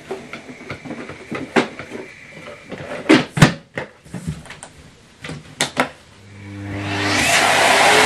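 Miele C3 canister vacuum cleaner being handled, with a series of sharp plastic clicks and knocks, the loudest a few seconds in. About six seconds in its motor switches on and rises over a second or so to a loud, steady rushing run with a low hum.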